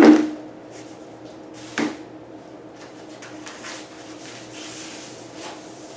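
Sharp metallic knock with a short ring at the start, a second knock about two seconds in, then light clicks and handling noise: hand tools and bicycle parts being handled while a rear derailleur and its shift cable are taken off.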